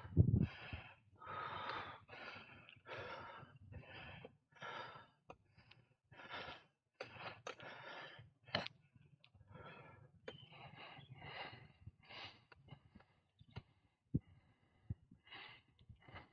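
A cyclist huffing and puffing hard while pedalling uphill: quick, loud breaths in and out, about one and a half a second. There is a low thump right at the start.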